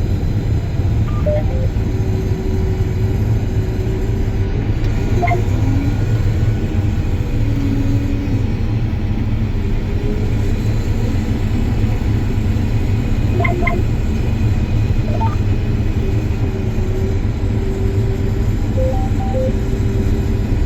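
John Deere combine running steadily while harvesting wheat, a constant low rumble heard from inside the cab, with a few short, faint electronic beeps scattered through it.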